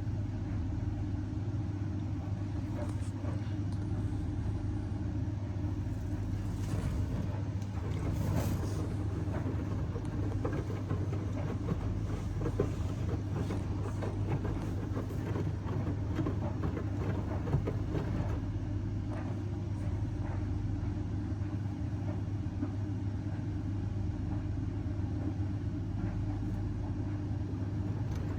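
Indesit washing machine running near the end of the main wash on its 85-degree baby cycle: a steady motor hum with faint, irregular knocks from the drum.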